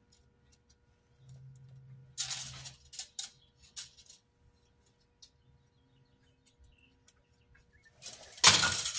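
Small scratches and handling noises as a pencil marks steel rebar held against a tape measure, then a louder clattering scrape about eight seconds in as the rebar and tape are handled.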